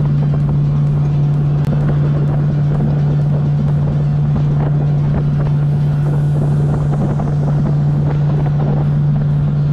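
Motorboat running steadily at cruising speed: a constant engine drone over the rush of water against the hull and wind on the microphone.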